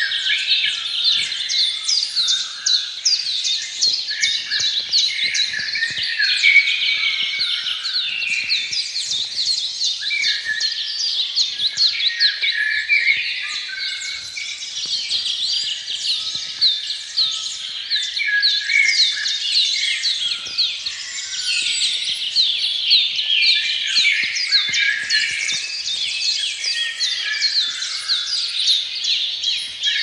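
A dense chorus of many small birds chirping and twittering, their short, quick calls overlapping without a break.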